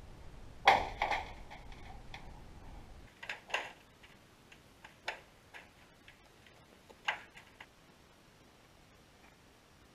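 Irregular sharp clicks and knocks picked up by an underwater camera, often in pairs, the loudest about a second in. A low rumble under the first few seconds stops suddenly.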